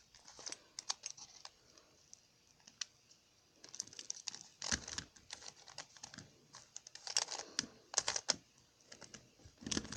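Plastic Rubik's cube shape mod being handled and twisted: quiet, irregular plastic clicks and clacks, with a short lull in the first half.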